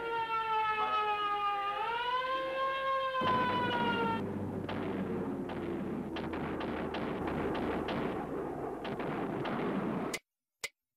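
Air-raid siren wailing, its pitch rising and then slowly falling before it fades out about four seconds in. Under it and after it is a noisy din of many sharp cracks, like gunfire, which cuts off abruptly near the end.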